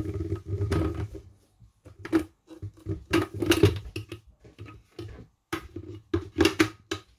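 Hard plastic parts of an ice cream maker knocking, clicking and rubbing against each other as they are handled, the lid ring lifted and turned over the tub, in three clusters of knocks.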